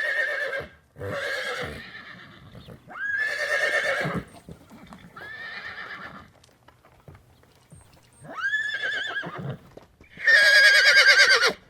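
A horse neighing repeatedly: six whinnies, each about a second long, with a quavering pitch and short pauses between them. The last one, near the end, is the loudest.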